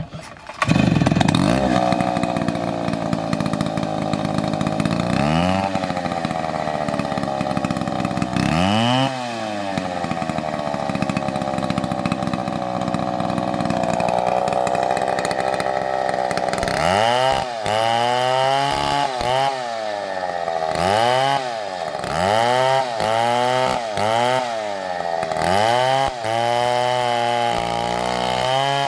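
STIHL chainsaw running at high revs. Its engine pitch dips and climbs back again and again, most often in the second half.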